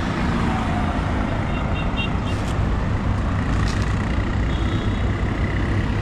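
Steady roadside traffic noise, vehicles running past, with two short runs of high beeps partway through.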